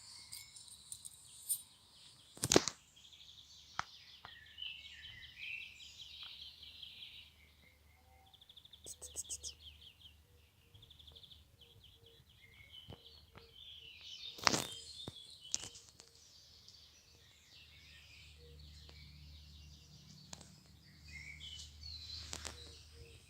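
Small birds chirping and trilling, with a few sharp clicks or knocks, the loudest about two and a half seconds in.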